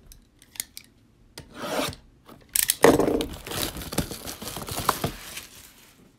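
Trading card packaging and cards being handled and opened: scraping, rubbing and rasping of wrapper, cardboard and card stock, a few short scratches at first, then a longer, louder stretch of rubbing and scraping in the middle.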